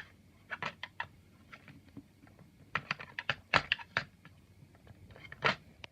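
Small plastic toys clicking and knocking together as they are handled: a string of light, irregular clicks, with a few louder knocks around the middle and near the end.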